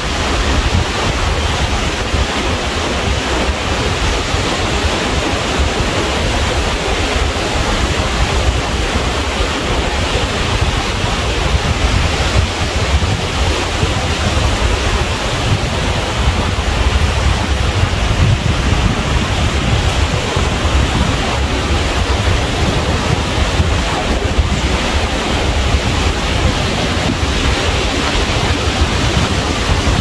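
Ocean surf washing continuously onto a shore, with wind rumbling on the microphone.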